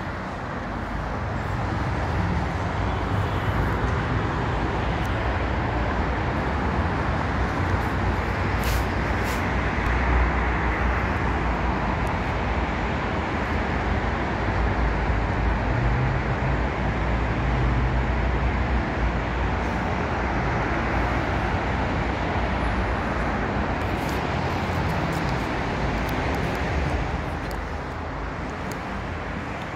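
Steady road traffic noise from a busy highway below, louder from about a second in and dropping back near the end.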